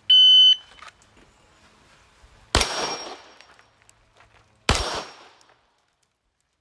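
An electronic shot timer gives a short start beep, then a pistol fires two shots about two seconds apart, each ringing out briefly.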